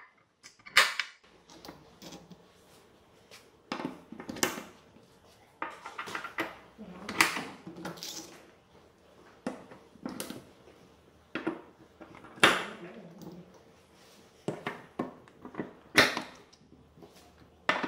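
Hydraulic quick-connect hose couplings being pushed onto and off their fittings by hand: sharp metal clicks and clacks every second or two at uneven spacing, with the softer rattle of hose ends and fittings being handled between them.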